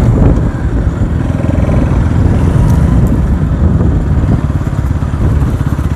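Motorcycle on the move, its engine running under a loud, unsteady low rumble of wind on the microphone.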